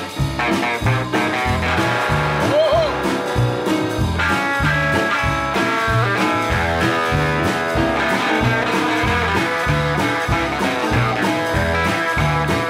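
Live rock and roll band playing an instrumental passage with no singing: electric guitars, upright double bass and drums, over a steady, even bass line.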